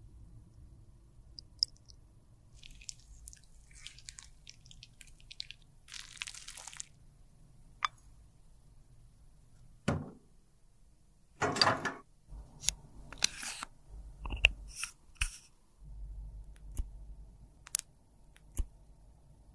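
Scattered small handling sounds: clicks, taps and short scrapes as lipstick tubes and tools are handled and set down, over a faint low hum.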